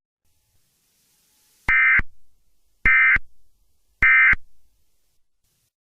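Three short bursts of Emergency Alert System digital data tones, about a second apart: the SAME end-of-message code that closes an alert.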